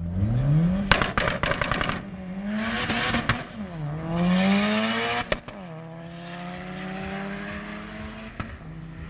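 Drag cars launching and accelerating hard down the strip: an engine revs up sharply, a rapid string of crackling pops follows, then the engine note climbs, dips at a gear change about four seconds in and climbs again before settling to a steadier note.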